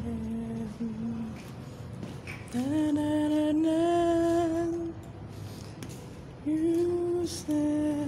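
A voice singing a slow melody in long held notes, a phrase ending about a second in, a long held phrase from about two and a half seconds in, and two shorter notes near the end.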